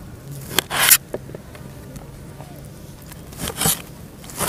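Kitchen knife cutting through a tomato onto a plate in short slicing strokes: two about a second in and one more past three seconds. A faint low buzz runs underneath.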